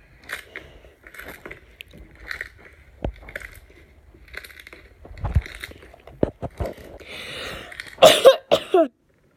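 Iceberg slime being squeezed and kneaded by hand, its dried crust crackling and crunching in short bursts about once a second. Near the end comes a louder crackling burst with a brief falling tone, then the sound cuts off suddenly.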